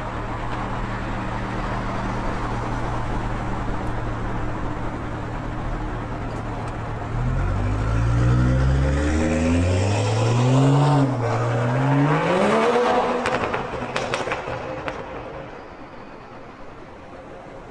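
BMW M340i's turbocharged inline-six idling steadily, then about seven seconds in pulling hard: the engine pitch climbs and drops back through about four quick upshifts before fading out.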